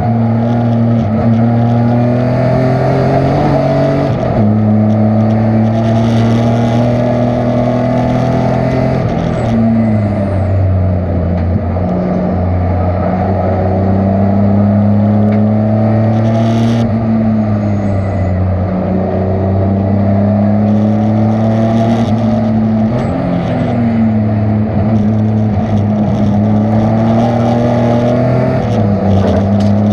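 Race car engine running hard on track. Its pitch climbs and falls, with abrupt steps at several gear changes.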